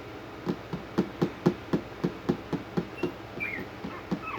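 Steady rhythmic knocking, about four knocks a second, with two short high squeaks that fall in pitch near the end.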